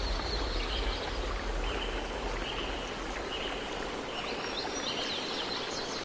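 Steady rush of running water, with birds chirping high over it, the chirps coming more often near the end.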